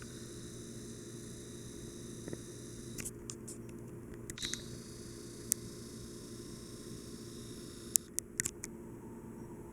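Hunter Passport ceiling fan running with a steady low hum, broken by a few sharp clicks about three, four and a half, five and a half and eight seconds in.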